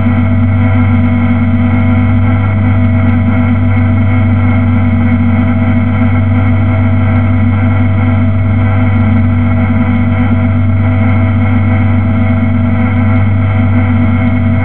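BMW E30's engine idling steadily at a constant speed, heard from inside the cabin.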